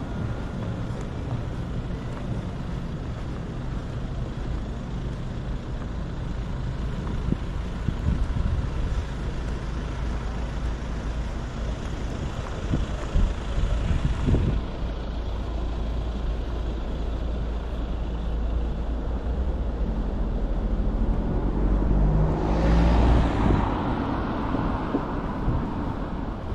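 City street traffic: a steady low engine rumble from passing vehicles, with one louder vehicle going by about 22 seconds in.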